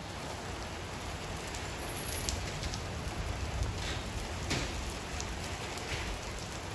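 Steady rain from a passing storm, falling as an even hiss, with a low rumble underneath and a few sharper drop or tap sounds now and then.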